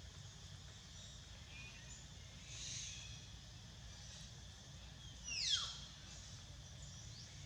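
Steady low outdoor background rumble, with one short high-pitched animal call about five seconds in that falls sharply in pitch.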